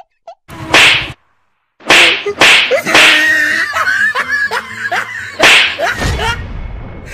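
A series of sharp swishing, smacking sounds in quick bursts, with a voice heard between them.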